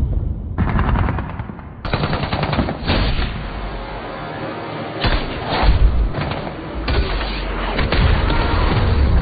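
Film battle sound effects: rapid automatic gunfire mixed with heavy explosions, with a big blast near the end.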